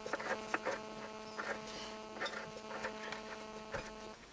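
Light metallic clicks and taps as a nut is worked by hand on a stud of a UTB 650 tractor's wheel hub, over a steady hum that cuts off near the end.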